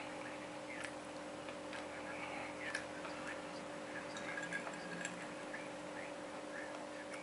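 A metal spoon clinking and scraping against a ceramic plate of rice in scattered light clicks, over a steady background hum.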